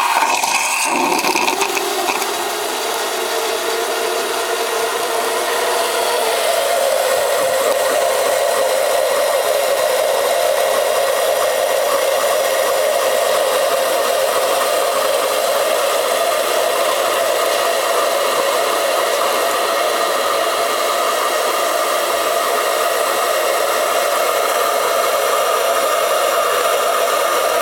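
Espresso machine's steam frothing attachment running in a container of milk: a loud, steady steam hiss with a tone that slowly rises in pitch as it froths the milk.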